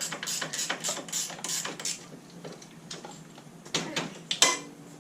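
Ratchet wrench clicking in a steady rhythm, about four clicks a second, for about two seconds, then stopping; two sharp metal clinks follow near the end, the second one ringing briefly.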